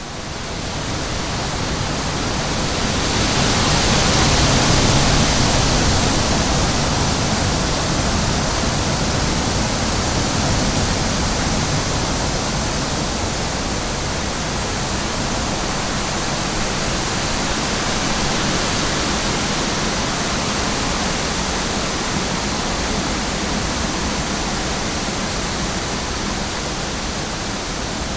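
Steady rushing water, an even full-range hiss with no distinct splashes, fading up over the first couple of seconds and swelling slightly about five seconds in before settling.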